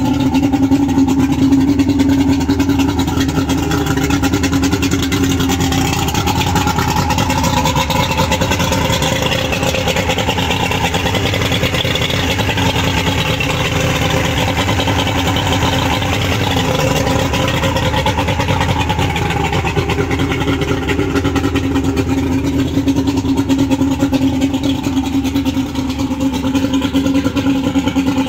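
Mercury 200 2.5L V6 two-stroke outboard running steadily at a low, even speed; its tone shifts through the middle stretch, brighter and harsher in the middle.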